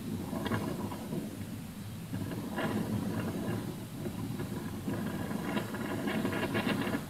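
Uneven rumbling vehicle noise with rattling surges, from a recorded video's soundtrack played over the car's audio system.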